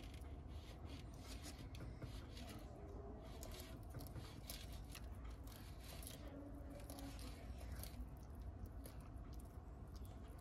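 Bearded dragons biting and chewing leafy greens: faint, irregular crisp clicks and crunches.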